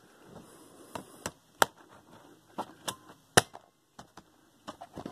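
Sharp plastic clicks and taps, about ten in irregular succession, as the laptop's battery is set back into its bay and latched into place.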